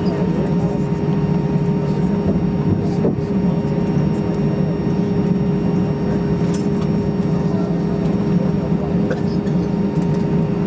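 Steady cabin drone of an Airbus A320-232 taxiing with its IAE V2500 engines at idle, heard from inside the cabin, with a constant low hum and a fainter higher tone running through it.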